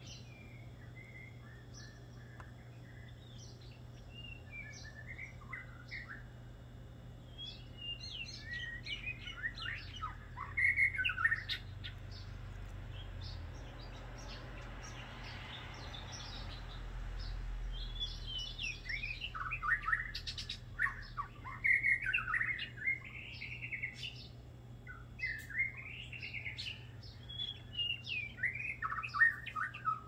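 Songbirds singing varied, melodic phrases and chattering. The song comes in busy spells with a lull near the middle.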